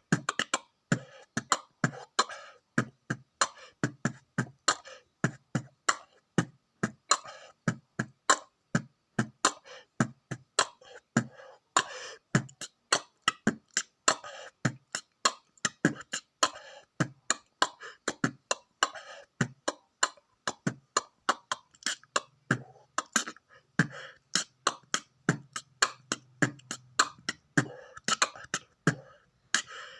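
Vocal beatboxing imitating a drum kit: a fast, steady rhythm of sharp mouth-made kick, snare and hi-hat strokes, several a second.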